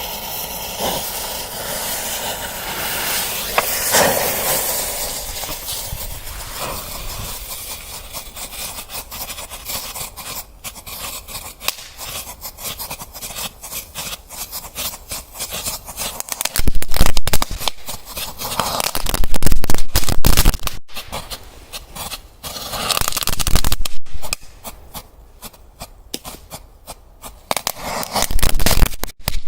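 Firecrackers going off: a hissing burn opens it, then a long run of rapid crackling pops, with several louder clusters of bangs over the second half.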